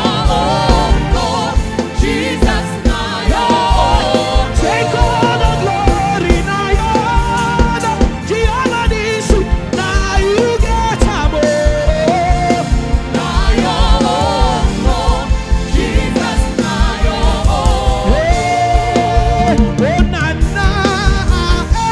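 Live gospel praise music: singing with a lot of vibrato and runs over a band with a quick, steady drum-and-bass beat. One long held note comes near the end.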